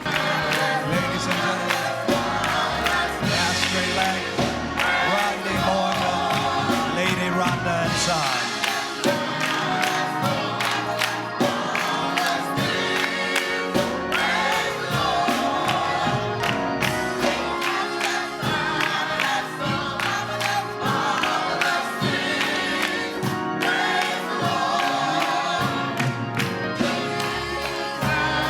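Gospel music: a choir singing with a band accompanying.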